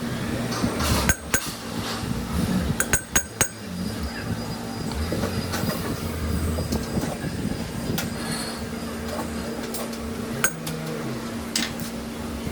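Sharp metal clinks and knocks over a steady machine hum, from work on a lathe's four-jaw chuck. The clinks come in a cluster about a second in, another around three seconds, and a few single ones later.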